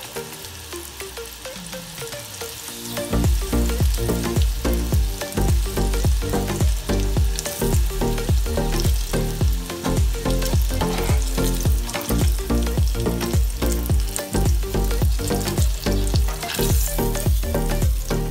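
Breaded banana-peel strips deep-frying in a saucepan of hot oil, a steady sizzle, under background music whose steady beat comes in about three seconds in and is louder than the frying.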